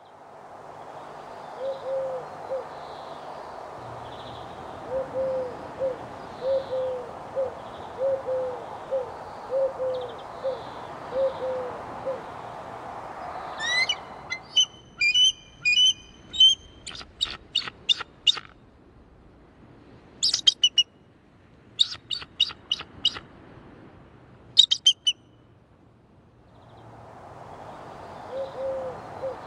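A bald eagle's high-pitched chattering calls: a rising note, then several bouts of quick, sharp piping notes. They come after a stretch of steady rushing background carrying short low calls in twos and threes.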